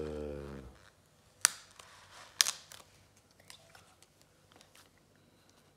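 A child's short hum falling in pitch, then two sharp clicks about a second apart and faint paper rustles as a Panini sticker is handled.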